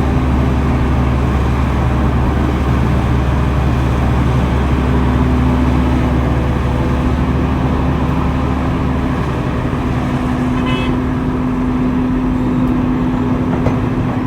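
Heavy earthmoving machinery's diesel engine running steadily.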